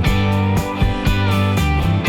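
Background music with strummed guitar over a steady bass beat.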